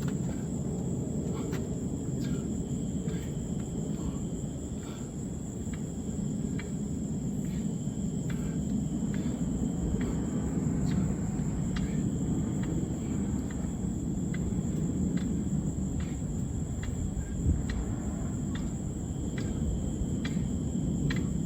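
Outdoor night ambience: a steady low rumble under insects chirping, with a constant high-pitched whine and faint short chirps repeating about once a second.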